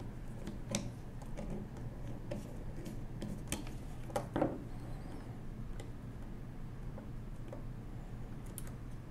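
Light, scattered metallic clicks and taps of a screwdriver and small steel parts as a screw is backed out of a 1920s Monroe mechanical calculator's mechanism, with a slightly louder pair of clicks about three and a half and four seconds in, over a low steady hum.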